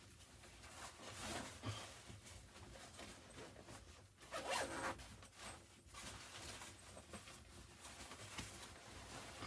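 A zipper being pulled in several short, quiet strokes, the loudest about halfway through.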